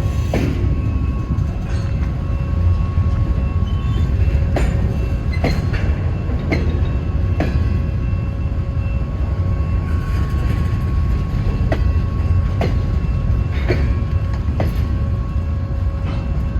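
Norfolk Southern freight train cars rolling past: a steady low rumble with irregular clicks of wheels over rail joints and a faint steady high whine from the wheels.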